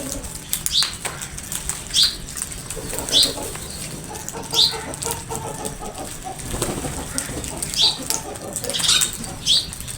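Crows calling while they squabble over food: harsh lower calls, mixed with short high-pitched falling calls that repeat about every one to two seconds.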